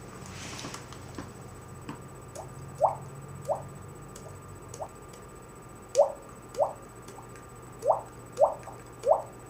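Water-drop sound effect: a series of short plinks, each rising quickly in pitch. They come irregularly, louder and more often in the second half.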